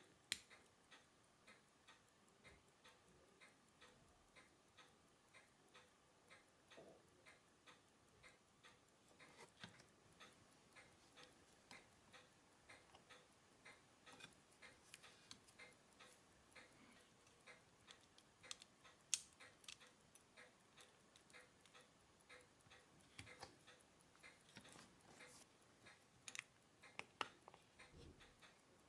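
Unitas 6497 mechanical pocket-watch movement ticking steadily and faintly. A few sharper single clicks stand out over the ticking, one near the start, one about two-thirds through and several near the end.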